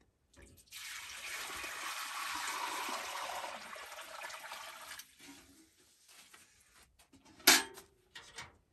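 Fresh milk poured from a metal bucket into a wide metal pan: a steady splashing stream that starts about a second in and tapers off around five seconds. Near the end comes one sharp clank as the bucket is put down.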